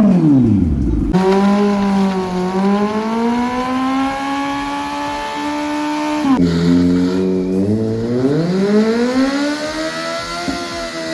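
Kawasaki Z900's inline-four engine held at high revs during a burnout, its pitch wandering slowly. The revs dip about six seconds in and climb back up.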